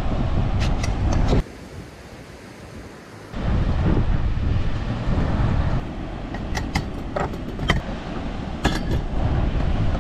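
Wind buffeting the microphone as a heavy low rumble, cutting in and out abruptly, with a few light clicks and taps over it.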